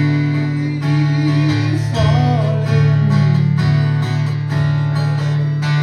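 A live folk-rock song: strummed acoustic guitar with a male voice singing long held notes.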